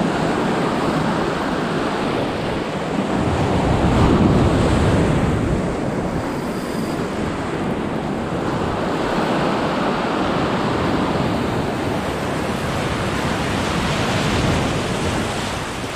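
Sea waves breaking and washing over shoreline rocks, surging and easing in slow swells, loudest about four seconds in.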